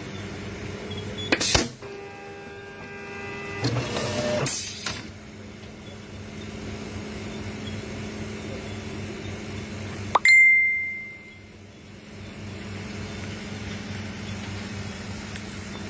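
JUKI AMS-224C computer-controlled pattern sewing machine standing powered on with a steady electrical hum, not stitching. Two short hisses of air come near the start with a whining tone between them, and about ten seconds in there is a click followed by a short high beep.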